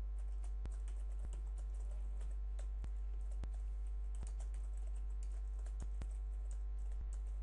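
Computer keyboard typing: irregular keystroke clicks at an uneven pace, over a steady low electrical hum.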